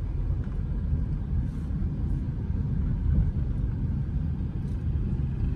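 Steady low rumble of a moving road vehicle: engine and road noise while driving.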